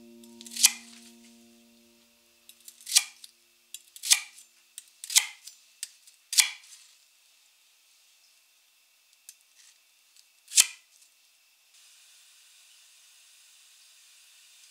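Kitchen knife cutting through a thick white Japanese leek into rounds on a wooden cutting board. There are six crisp chops spaced one to four seconds apart, with a few lighter taps between them. Near the end a faint steady hiss begins.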